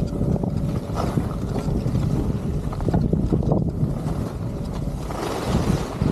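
Wind rushing over the microphone during a downhill ski run, a steady low buffeting, with the hiss of Atomic Bent 90 skis sliding over groomed snow getting louder about five seconds in.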